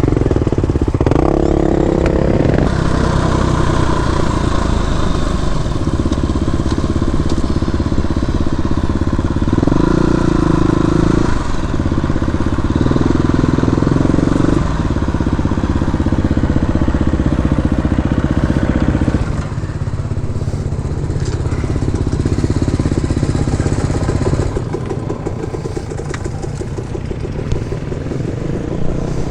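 Off-road dirt bike engine running under way, its note rising and falling in steps with throttle and gear changes. It settles to a lower, quieter pace about two-thirds of the way through.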